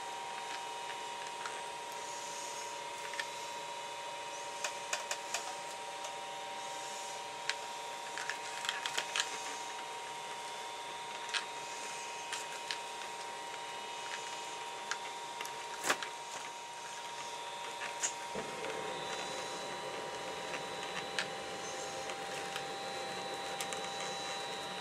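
Scattered small clicks and taps of hands handling and smoothing modeling compound along the belly seam of a walleye skin mount, over a steady background hum. The sharpest tap comes about two-thirds of the way through.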